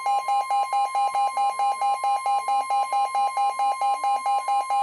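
NOAA weather alert radio sounding a Flash Flood Warning alarm. A rapid, piercing beep, about four or five a second, sounds over the steady 1050 Hz warning alarm tone.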